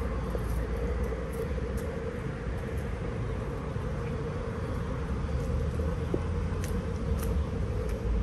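Steady low rumble of city road traffic, with a few faint ticks near the end.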